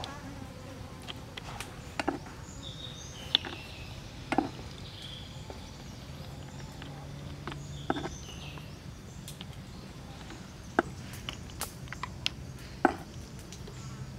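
Flies buzzing near the food, with several sharp clicks and taps as a wooden spoon drops chopped aromatics into raw crab shells on a wooden tray.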